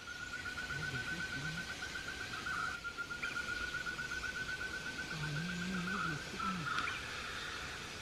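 An insect trilling in the forest: one steady, high, fast-pulsing note throughout. Two faint, wavering low hums are heard, a short one about a second in and a longer one past the middle.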